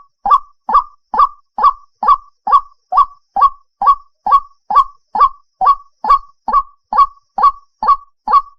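White-breasted waterhen (ruak-ruak) calling: an unbroken, even series of short calls, a little over two a second.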